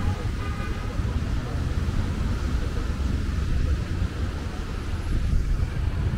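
City street traffic: cars driving through an intersection, a steady low rumble of engines and tyres.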